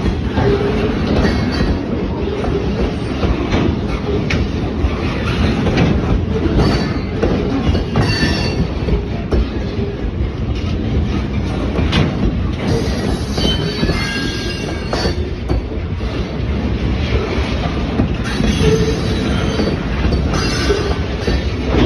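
Slow freight train rolling past close by: a steady rumble of wheels on rail, with high wheel squeals coming and going and occasional sharp clanks.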